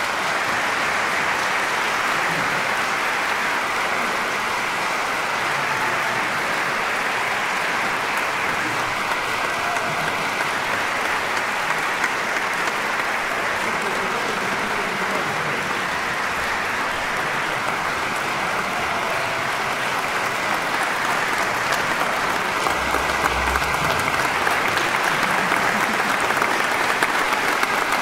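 Concert audience applauding in a large hall, a dense, steady clapping that grows a little louder near the end.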